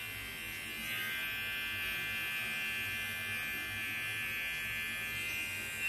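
Wahl Mini Arco cordless pet trimmer buzzing steadily as it shaves the fur around a puppy's paw pads, a little louder from about a second in.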